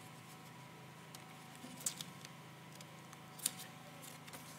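Quiet room tone with a faint steady hum, broken by two small sharp clicks, about two seconds in and again a second and a half later.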